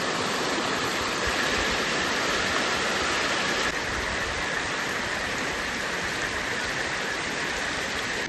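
Dense, steady rush of water, dropping a little in level about three and a half seconds in.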